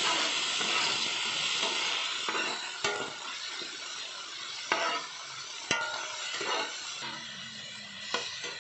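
Chopped onions, tomatoes and green chillies sizzling in hot oil in a large wok, the hiss loudest at first and easing off. A spatula knocks and scrapes against the pan about five times while the food is stirred.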